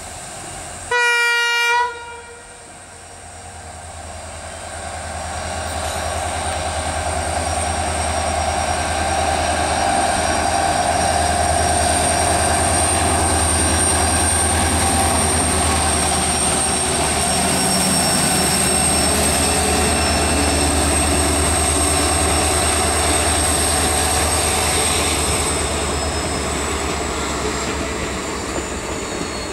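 A WDP-4D diesel locomotive gives one short horn blast about a second in. Its engine and the train then grow louder as it approaches and passes, and the passenger coaches roll by with a steady rumble and clatter on the rails that eases off near the end.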